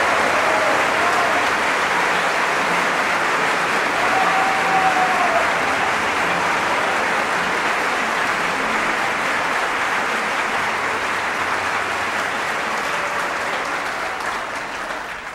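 Opera house audience applauding steadily, with a few voices calling out above the clapping; the applause fades out near the end.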